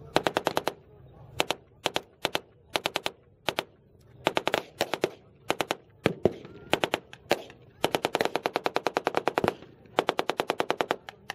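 Machine guns firing blanks in short and long rapid bursts, about ten shots a second, with single rifle shots in between; the longest burst comes about eight seconds in.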